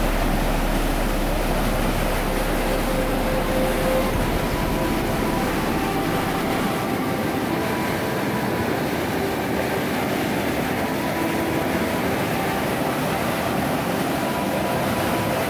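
Fast, turbulent water rushing down a concrete irrigation canal and churning over a drop: a steady, even rushing noise.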